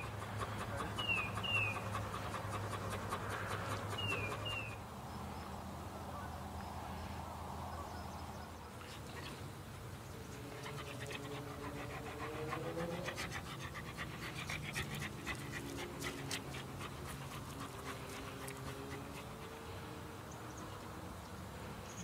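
A dog panting. In the first few seconds a bird gives short falling two-note calls, and faint wavering tones come and go in the second half.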